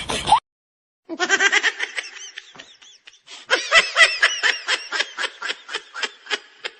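Laughter sound effects. A laugh cuts off just after the start, then after a brief silence comes a high-pitched giggling laugh of quick repeated ha-ha pulses, and about halfway through a louder run of laughter begins that trails off toward the end.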